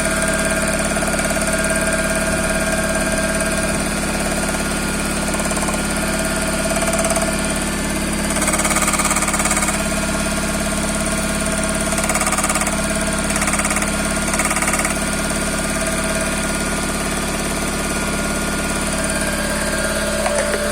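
Toyota 5E-FE 1.5-litre inline-four idling with a knock, given a few short blips of the throttle in the middle. The knock is the engine fault being shown.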